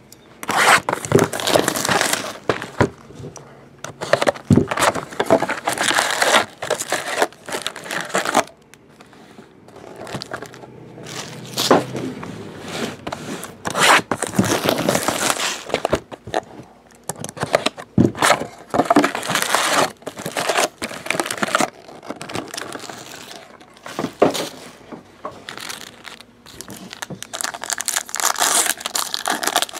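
Foil trading-card packs crinkling and rustling in irregular bursts as they are handled and pulled from Marvel Now boxes, with wrapper tearing now and then. Near the end a foil pack is torn open.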